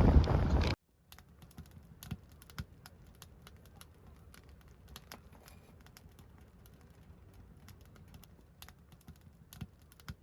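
Wind buffeting the microphone, cut off abruptly under a second in, followed by faint, irregular light clicks.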